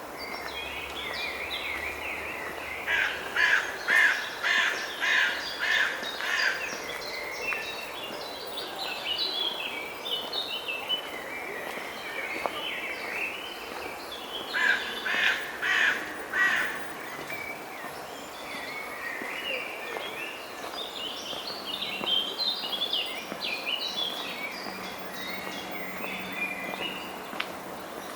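Crows cawing in two runs of harsh, repeated calls, about two a second, over other birds chirping and singing throughout.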